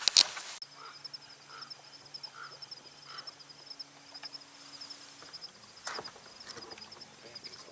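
Outdoor lakeside ambience: a steady high-pitched rapid trill, with soft calls repeating roughly once a second and a faint low hum underneath. A sharp click at the very start is the loudest sound, and there is a single brief crack about six seconds in.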